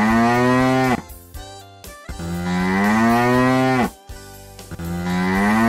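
Cow mooing three times in a row, each a long low call that rises and then falls in pitch, with short gaps between them.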